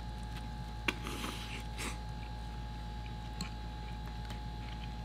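Ramen noodles being eaten with metal forks from ceramic bowls: a sharp click of fork on bowl about a second in, then a short slurp, and a faint tick a couple of seconds later, over a steady low hum.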